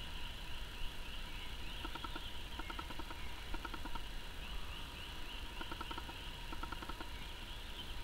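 Wild birds calling: a continuous series of short, high rising chirps, joined from about two seconds in by groups of quick pulsed notes roughly once a second. Underneath is a steady low rumble.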